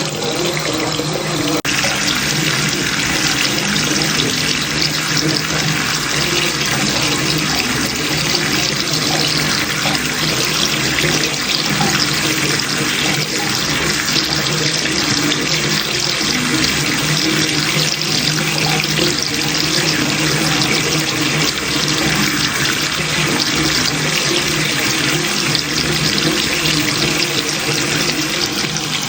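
Water running steadily from a bathroom tap into a sink, a continuous rush. About two seconds in the flow turns brighter and fuller.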